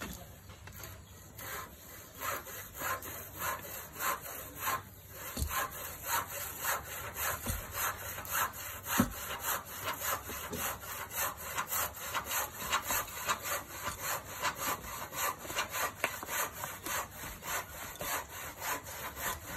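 Hiss of a jet of spray over broken termite-mound clay, pulsing evenly about three times a second, with a few dull thuds of a steel digging bar striking the mound in the middle.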